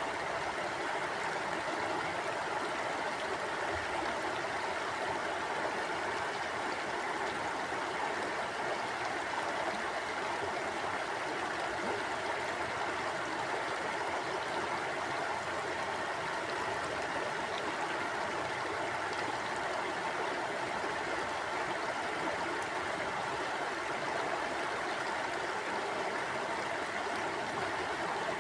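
River water flowing over rocks: a steady, even rushing and babbling of the current.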